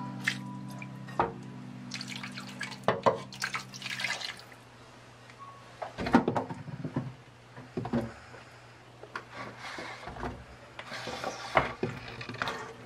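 Marinade dripping from a glass bowl into a wok of short ribs and onions. Then chunks of raw vegetables are dropped into the pan with a series of short knocks and clatters.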